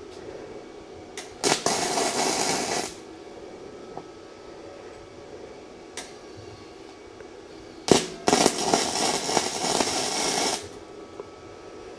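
Gasless flux-core MIG welder (Unimig Viper 120, 0.8 mm wire) crackling in two bursts, about a second and a half long and then nearly three seconds long: tack welds joining the shortened steel kickstand.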